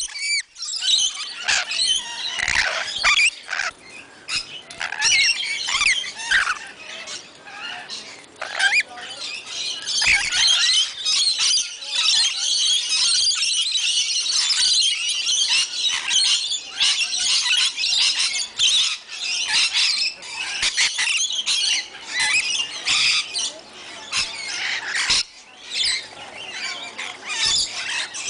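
A flock of lorikeets screeching and chattering all at once in a constant shrill chorus, with a few dull bumps here and there.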